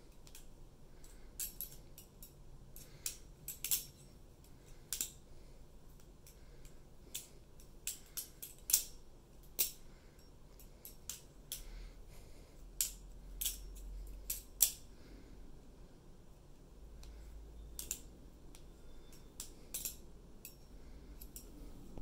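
Mako V1 balisong (butterfly knife) being flipped: sharp metallic clicks and clacks as the handles and blade swing open and shut, coming irregularly in quick clusters with short pauses between.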